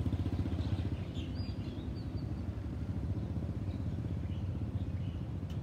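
Low, steady rumble of a Boeing 737-800's CFM56 jet engines passing at a distance, with a few faint bird chirps above it.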